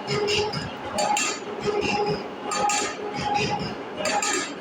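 Metal shaper cutting cast iron: repeated metallic clinks and rattles that swell and fall with each stroke of the ram.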